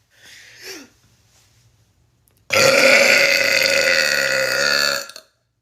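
A person's long, loud burp, starting about two and a half seconds in and lasting about two and a half seconds before cutting off.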